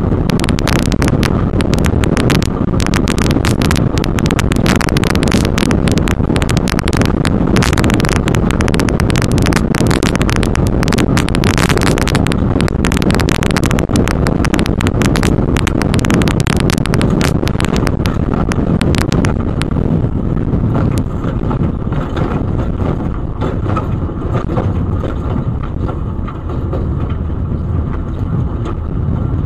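Stock-class off-road race vehicle driving fast over a desert dirt track, heard from inside the cab: a steady rumble of engine and tyres with dense clatter and rattling. The clatter eases off about two-thirds of the way through while the rumble carries on.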